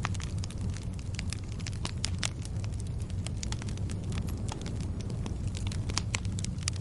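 Wood fire burning, with a steady low rumble under frequent sharp, irregular crackles and pops.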